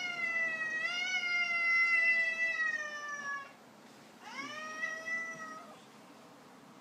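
Domestic cat meowing: one long, drawn-out meow that slowly falls in pitch, then a second, shorter meow about four seconds in.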